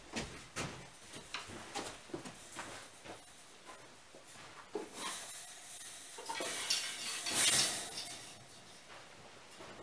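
Welded steel reinforcing mesh sheets clinking and rattling as they are handled and stood against a wall, with scattered light metal clicks and a louder scraping rattle between about five and eight seconds in.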